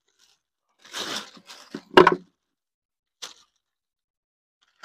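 Handling noises while the sink's drain hose is being fitted: a short rustle about a second in, then a sharp knock about two seconds in, the loudest sound, and a faint click a little later.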